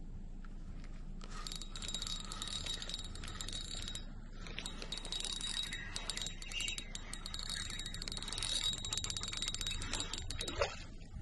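Spinning reel cranked to retrieve line: rapid metallic clicking with a faint high steady whine, pausing briefly about four seconds in. Near the end comes one brief sharp sound falling in pitch.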